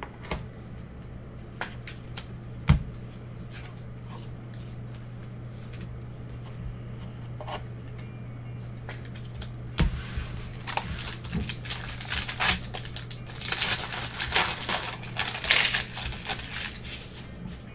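A sharp knock about three seconds in. Then, from about ten seconds in, the wrapper of a 2020 Panini Select football card pack crinkles and tears as it is opened by hand, loudest in the last few seconds.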